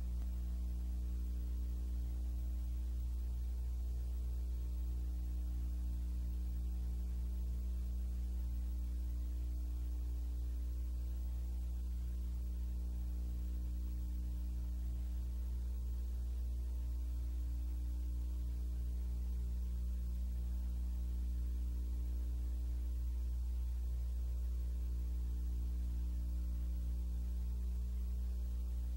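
Steady low electrical mains hum with a buzz of evenly spaced overtones, over a blank black stretch of old videotape with no programme sound.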